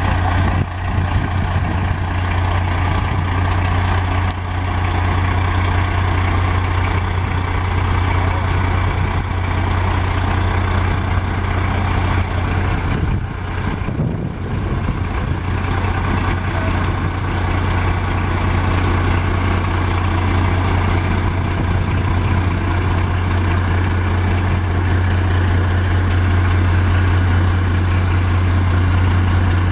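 2018 Peterbilt septic truck running while standing, a steady low engine drone.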